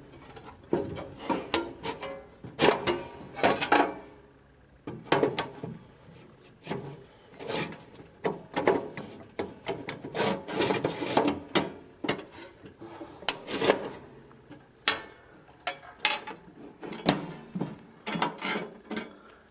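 Dividers being fitted back into an all-metal triple vending machine: irregular scraping and rubbing with sharp knocks and clicks, in quick clusters broken by short pauses.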